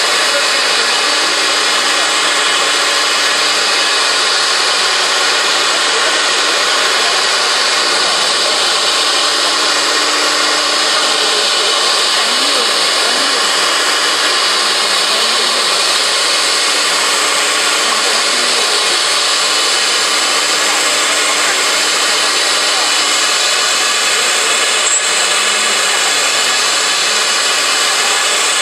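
Four-spindle CNC router's spindle cutting grooves into a wood board, a steady, unbroken machining noise.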